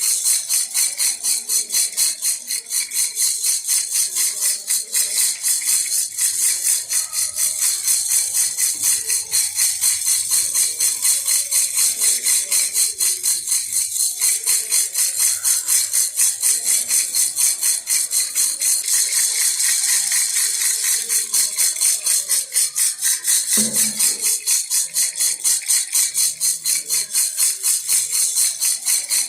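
Baby rattle (jhunjhuna) shaken in a steady, even rhythm of about four to five shakes a second, with a bright, high jingling rattle. There is one brief low thump near the end.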